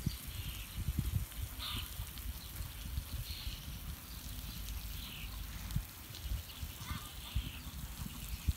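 Steady hiss of a sprinkler's water spray, under irregular low thuds and rumble from a horse cantering on sand footing.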